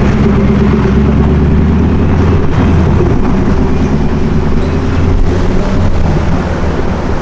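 A supercar's engine running loudly with a steady, deep note that eases and fades slightly near the end.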